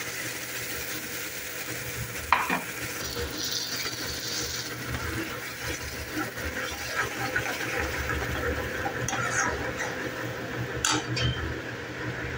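Puréed tomato sizzling in hot oil with fried onions in a steel kadhai, stirred with a steel spoon that scrapes round the pan. A sharp knock of the spoon on the pan about two seconds in, and another near the end.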